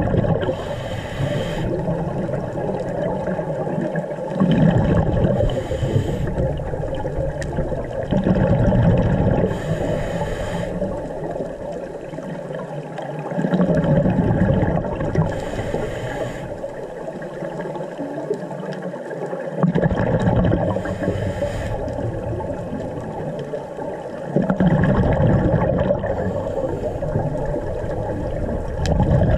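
Scuba diver breathing through a regulator underwater, in a slow cycle: a thin hiss on each inhale and a loud rush of exhaled bubbles about every five seconds, six times in all, over a steady underwater rumble.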